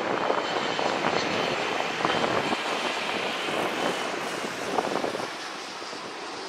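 Jet noise from a McDonnell Douglas MD-80-series airliner's two rear-mounted Pratt & Whitney JT8D turbofans as it passes close and low in the landing flare. A steady jet rumble with a thin whine, easing off a little after about five seconds.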